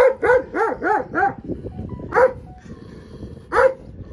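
Mother dog barking at an approaching person: a quick run of five barks in the first second and a half, then two single barks. Aggressive, defensive barking from a nursing mother guarding her puppies.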